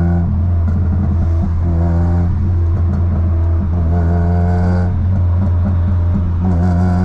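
Car engine and worn-out, damaged exhaust droning loudly while driving, heard from inside the cabin: a steady low drone with a higher droning tone that swells in four times. The exhaust's internal baffle has shifted out of place, which the driver blames for the excessive noise.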